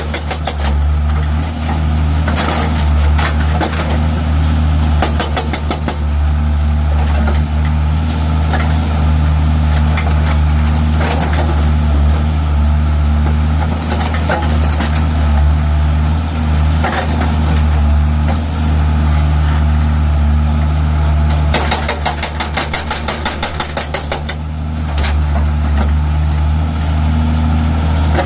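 Tata mini excavator's diesel engine running steadily, with scattered knocks and a few spells of rapid rattling clatter.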